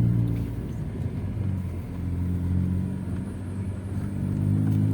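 A vehicle engine running on the road, its sound swelling and easing off twice as it speeds up and slows.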